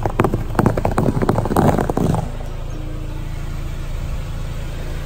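Car tyre rolling over a row of white foam balls, crushing them one after another in a quick run of crackling crunches that lasts about two seconds. After that comes the car's engine idling with a low, steady hum.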